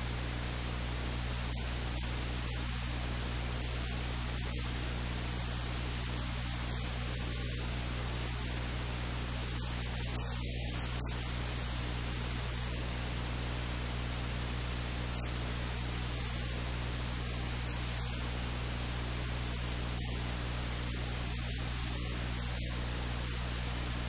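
Steady hiss over a low electrical hum, the recording's own noise with no other sound standing out.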